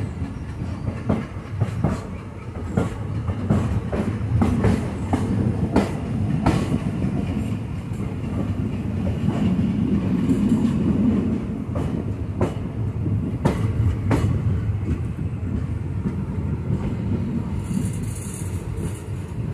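Passenger train coaches rolling along the track, heard from the side of a moving coach: a steady low rumble of wheels on rail with irregular sharp clacks as the wheels cross rail joints.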